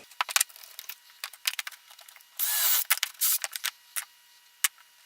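Sharp clicks and clattering taps of hand tools and parts being handled at a workbench, with one short hissing burst about halfway through that is the loudest sound.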